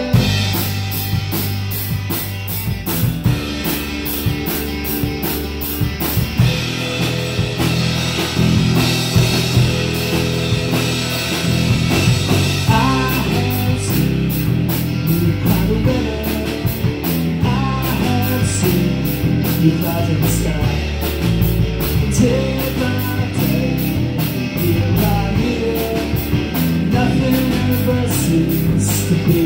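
Live rock band playing: electric guitars over a driving drum kit, with regular cymbal hits and a steady, stepping low bass line, and a melodic lead line weaving in from about halfway through.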